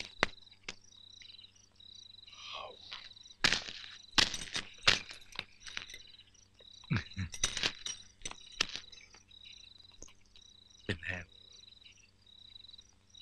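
Crickets chirping in repeated trills at a high pitch, with several sharp clicks and a few short vocal sounds mixed in.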